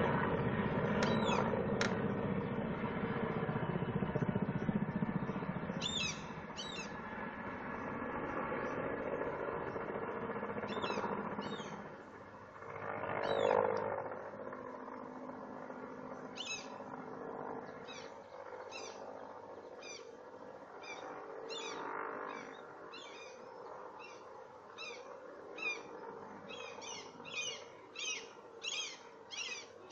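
Helicopter flying past at a distance: a steady drone, loudest in the first few seconds and fading away over about twelve seconds, with a brief swell again around thirteen seconds. Small birds chirp over it in short high calls, more and more often during the last dozen seconds.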